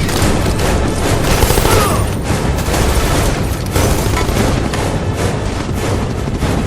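Dense, loud action-film sound mix: driving score music with rapid gunfire and heavy booms laid over it.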